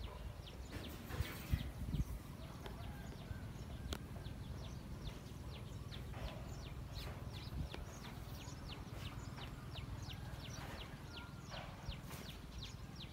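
Birds calling: a rapid run of short, high, descending chirps, about three a second, over a low steady rumble.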